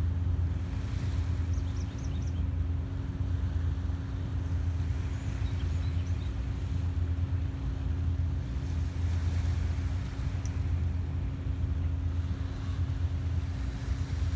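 Tugboat engine heard across open water as a steady low drone with a constant hum above it, while it moves a barge. A few faint bird chirps are heard near the start and again about six seconds in.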